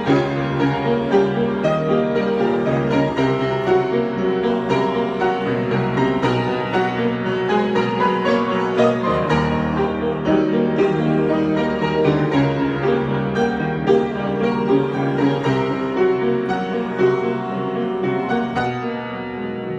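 Solo piano improvisation, chords and melody played continuously, easing off a little in loudness near the end.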